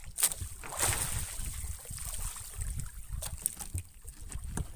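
Fishing net with plastic floats being paid out over the side of a small boat: scattered light knocks and clicks of floats and net, with a short rush about a second in. Under it runs a low steady rumble.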